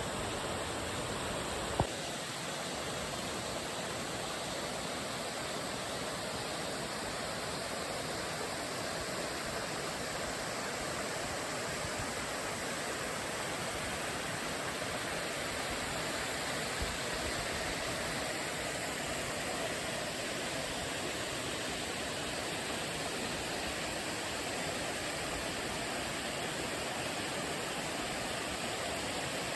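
Steady rushing water, the sound of a waterfall or mountain stream, with one sharp click about two seconds in.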